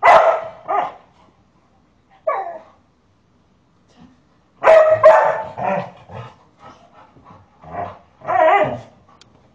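Large dog barking in short, loud bursts, several in quick succession about halfway through. It is barking protectively at a person pretending to hit a child.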